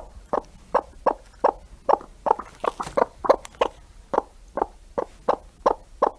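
A farm animal calling over and over in short, evenly spaced calls, about three a second.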